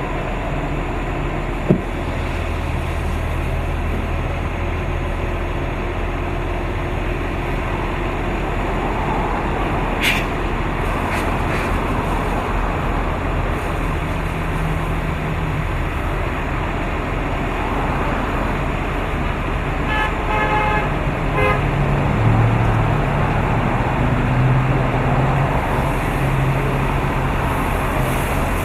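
Fire-truck wet-down: a steady rush of water spraying from fire hoses over the idling engine's low drone. About two-thirds of the way through there is a quick string of short beeps.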